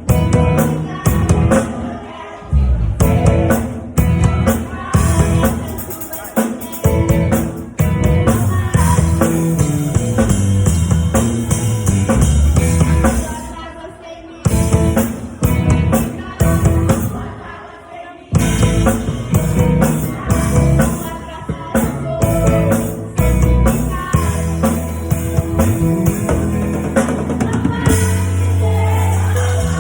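Drum kit played along with a band track with singing: kick and snare hits over sustained chords. There are short breaks about 14 and 18 seconds in, and the last few seconds settle into long held notes.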